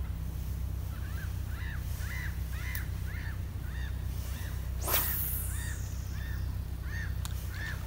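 A fishing rod swishing through the air in one quick cast about five seconds in. A bird calls throughout in a steady run of short arched chirps, about two a second, over a low steady rumble.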